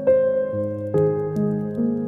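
Slow, soft solo piano music: chords struck at the start and about a second in, with further notes shortly after, each left to ring and fade.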